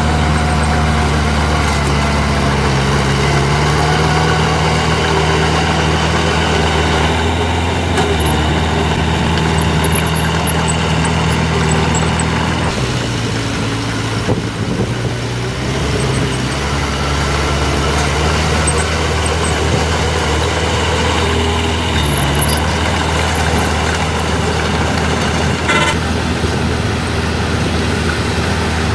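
Heavy diesel earthmoving machinery, a dump truck and a bulldozer, running steadily at a land-fill site. About halfway through, the deep engine note drops away for a few seconds, then builds back up.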